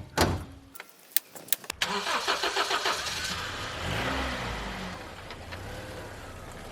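A few sharp clicks, then a car engine cranking on the starter with a fast even pulse, catching about three seconds in, revving briefly and settling into a steady idle.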